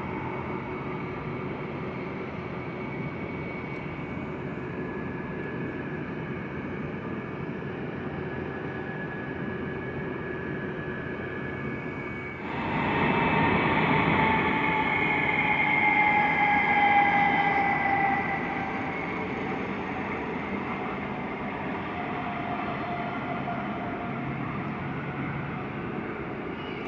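Jet aircraft engine noise: a steady rumble, then, about halfway through, it grows suddenly louder, with an engine whine that falls slowly in pitch as the aircraft passes, before easing back down.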